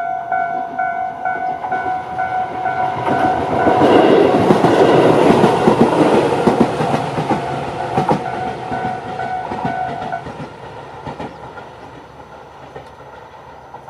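A Tobu 8000-series train passes over a level crossing, its wheels clicking over the rail joints, loudest in the middle and then fading away. The crossing's electronic warning bell rings its standard repeating tone throughout the passage and cuts off about ten seconds in as the train clears.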